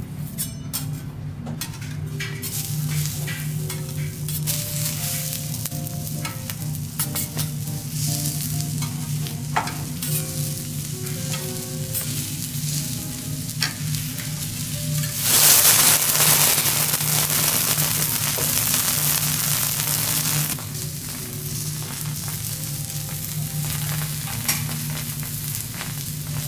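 Assorted vegetables frying on a hot teppanyaki iron griddle, sizzling, with metal spatulas clicking and scraping on the plate. About fifteen seconds in, the sizzle jumps to a loud hiss for about five seconds, then settles back.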